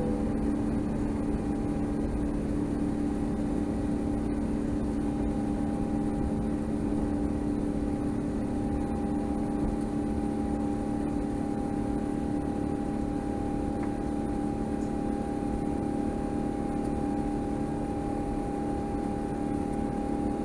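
Cabin noise inside an Airbus A350-900 airliner: a steady rush of engine and air noise with a drone of several constant tones, the highest of which grows a little stronger about eight seconds in.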